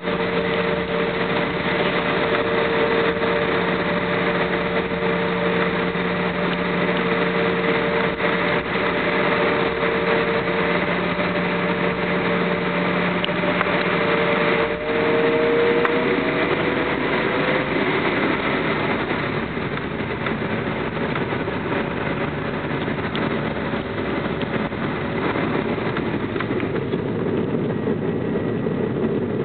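Cabin noise of an Embraer E175 taxiing, its GE CF34 turbofan engines at low power: a constant rush with a few steady humming tones that rise slightly in pitch and fade out about halfway through.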